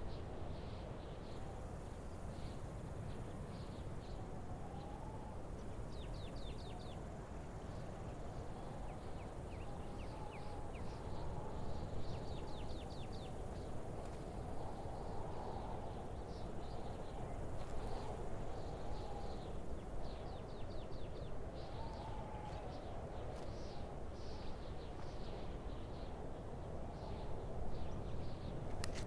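Desert ambience: birds calling in scattered short chirps and quick trills over a steady low background hiss.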